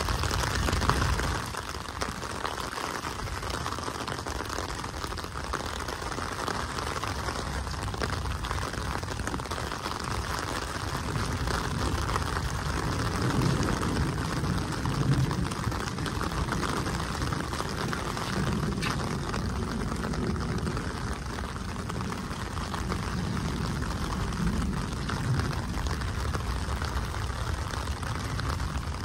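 Steady rain falling on a wet paved street and puddles: an even hiss with a low rumble underneath.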